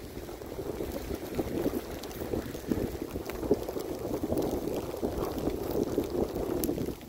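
Dog sled running over snow: a steady crackling hiss and scrape of the runners on the snow.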